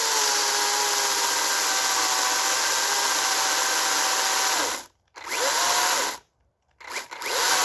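Makita DUC355 dual-battery cordless chainsaw running with a steady electric motor whine whose pitch sags slightly, then cutting out about five seconds in and starting again in two short bursts: the batteries are running flat.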